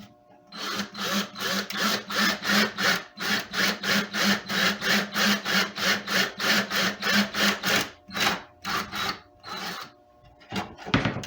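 Hand-drilling a hole through a guitar's thin wooden side: a rhythmic rasping, about four strokes a second, that turns to a few slower, spaced strokes near the end.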